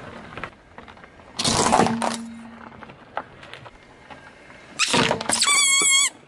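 Car tyre crushing toys on asphalt: a loud crunch about a second and a half in, another crunch near five seconds, then a high, wavering squeal for under a second near the end as a rubber squeeze toy is pressed.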